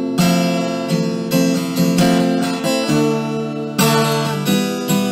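Acoustic guitar strummed in chords that change every second or so, accompanying a song between its sung lines.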